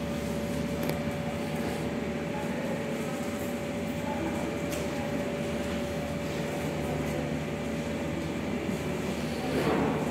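Steady mechanical hum of a running electric fan, with a constant faint whine over it. A brief rustle comes near the end.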